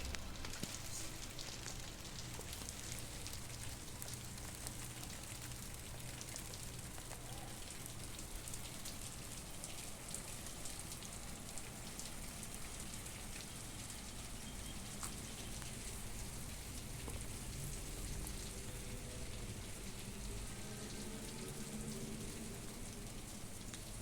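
Steady rain falling, a dense patter of small drops hitting surfaces.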